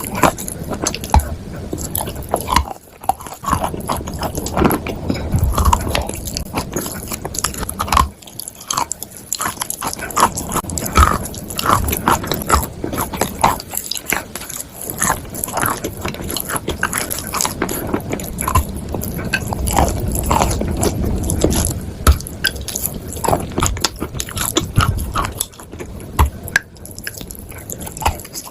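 Close-up biting and chewing of chalk and clay: a dense, irregular run of crunchy bites and grinding chews, with brief pauses about three and eight seconds in.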